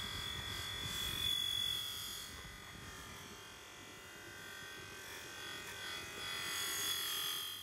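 Bench buffing machine running, its spinning polishing wheel pressed against an aluminium motorcycle sprocket cover: a steady rasping hiss with a high whine that fades after about two seconds and comes back near the end.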